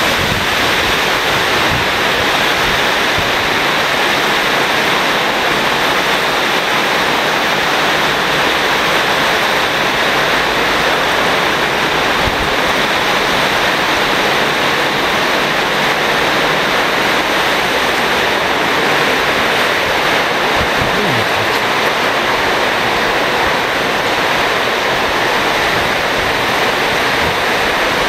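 Torrential rain pounding on the roof of an enclosed station footbridge, heard from inside as a loud, steady roar.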